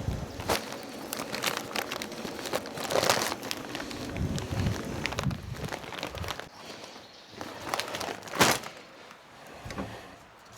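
Crinkling and rustling of a charcoal bag being handled, with scattered clicks and clatter of briquettes and one sharper knock about eight and a half seconds in.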